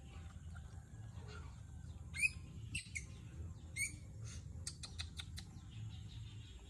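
Baby macaque giving short, high-pitched squeaks, loudest about two seconds in and again near three and four seconds, followed by a quick run of short chirps around five seconds in, while it is being rubbed dry with a towel.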